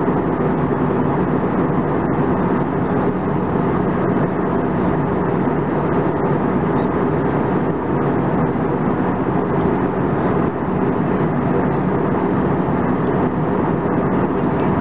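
Steady cabin noise of an Airbus A320-214 in flight: the rush of air and the hum of its CFM56 turbofan engines, heard from inside the cabin, even throughout with a faint low drone.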